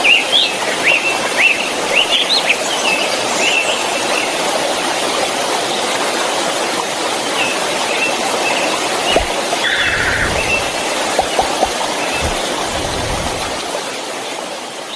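Waterfall rushing steadily, with birds chirping over it, most of the chirps in the first few seconds. The sound fades down near the end.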